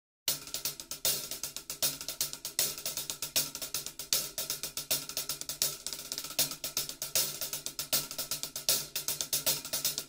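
Background music: a steady, fast hi-hat and cymbal rhythm over a low held note.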